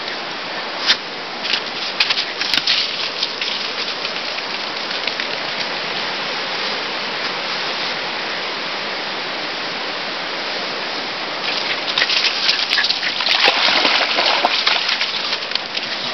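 Steady rush of flowing stream water, with fallen leaves crackling and rustling underfoot in short flurries near the start and more busily about twelve to fifteen seconds in.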